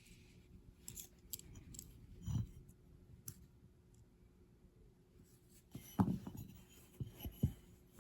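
Scattered small clicks and taps of a hand drill's metal parts being handled on a workbench, the loudest a sharp click about six seconds in.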